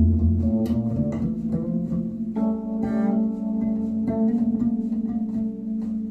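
Recorded music playing through Hans Deutsch Acoustic Research Poseidon horn loudspeakers: plucked string notes over a steady held low note, with deep bass at the start.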